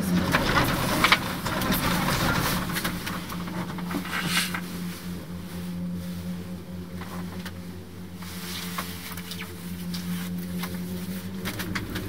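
Cable car running: a steady mechanical hum with frequent short clicks and rattles.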